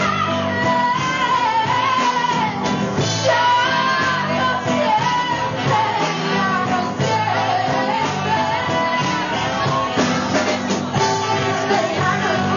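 Live rock band playing with a woman singing the lead vocal over electric guitars and drums.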